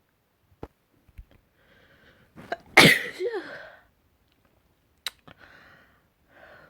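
A person's single loud, full sneeze let out rather than stifled, about three seconds in: a breathy intake builds up, then a sudden burst with a voiced tail that falls in pitch. Quieter breaths follow.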